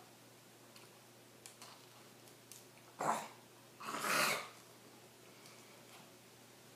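A person eating a milk-soaked tortilla burrito: faint wet mouth clicks, then two loud, breathy splutters about three and four seconds in, the second longer, with milk in his mouth.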